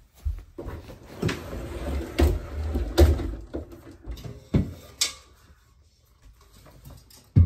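Wardrobe doors being pulled open: a rolling rumble broken by about six knocks and thuds over the first five seconds, then quieter rustling.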